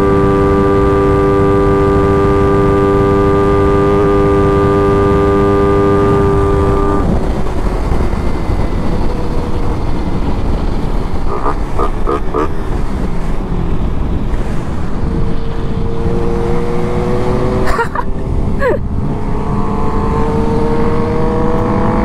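Suzuki motorcycle engine running at a steady speed under heavy wind rumble on the microphone. The engine tone drops away about seven seconds in, then rises in pitch again in the second half as the bike accelerates. A few sharp knocks sound along the way.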